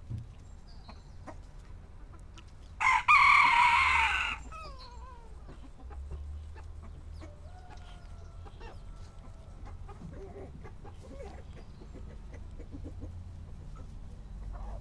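A rooster crows once, loudly, for about a second and a half a few seconds in. Chickens cluck and call faintly around it.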